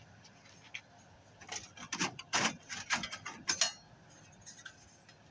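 Perforated sheet-metal shield cover being pried up and lifted off a flat-screen TV's chassis: a quick run of metallic rattles and scrapes, clustered over about two seconds in the middle.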